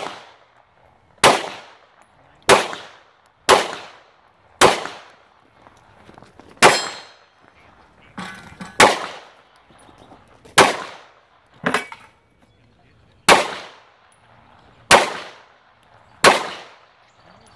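Handgun fired in a timed string: eleven single shots, one to two seconds apart, each with a sharp crack and a short echo off the berm. Several are followed by the metallic ring of bullets striking steel targets.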